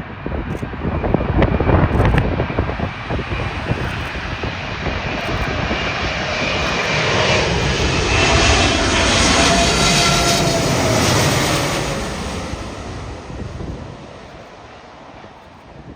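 Jet airliner flying past on its landing approach: the engine sound swells to a peak with a whine that drops in pitch as it passes, then fades. Wind gusts buffet the microphone in the first few seconds.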